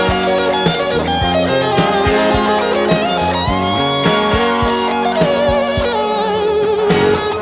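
Guitar-led rock music with a steady drum beat. A long bending guitar note slides down about halfway through.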